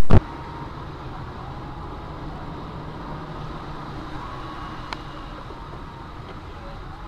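A brief very loud burst cuts off at the very start, then steady road and engine noise of a car driving, picked up by a dashcam, with one faint tick about five seconds in.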